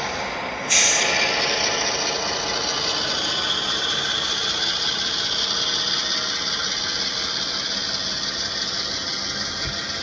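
HO scale model freight train running, its intermodal well cars rolling along the track. A sudden loud hiss comes in just under a second in and settles into a steady hiss that slowly fades.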